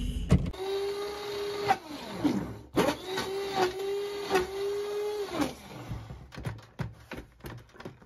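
Electric hand (immersion) blender whirring as it mixes powdered colostrum replacer in a plastic bucket. The steady whine sags and falls in pitch about two seconds in, picks up again, and stops about five and a half seconds in, followed by a few light clicks and knocks.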